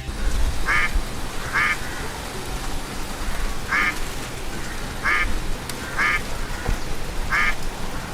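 A duck quacking: six short quacks at uneven intervals over a steady background noise.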